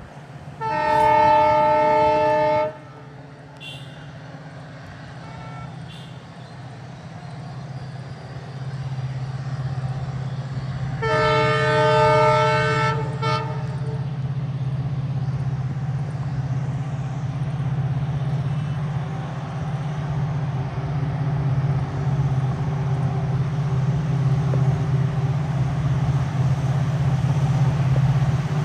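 Diesel locomotive horn blown twice in long multi-tone blasts, the second ending in a couple of short toots, as the locomotive's low engine hum builds and holds steady while the train approaches.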